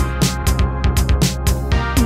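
Background electronic music with a steady drum beat and repeated falling bass notes.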